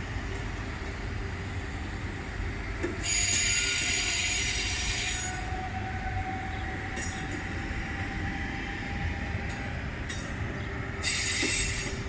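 Régio 2N double-deck electric multiple units rolling slowly into the platform with a steady low rumble, their wheels squealing high-pitched for about two seconds a few seconds in and again briefly near the end as the train slows.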